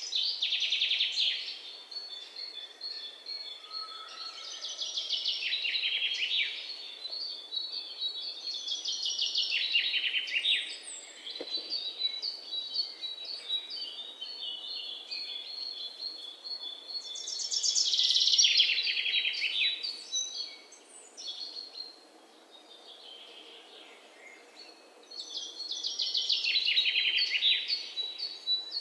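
Songbirds singing: loud, fast trills that fall in pitch, each lasting a couple of seconds and recurring every few seconds, with softer repeated high chirps between them.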